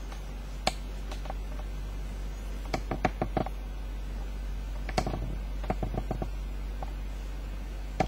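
Sneakers being handled: scattered light taps and clicks, some single and some in short quick clusters, over a steady low hum.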